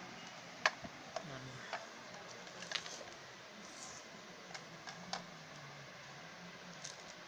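Scattered light clicks and taps of a plastic sewing-machine foot pedal and its cords being handled and set down on a hard floor.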